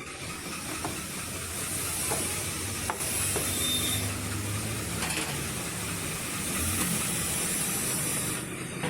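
Compressed air hissing steadily from an air gun as it blows out a TVS Raider's air filter, stopping shortly before the end.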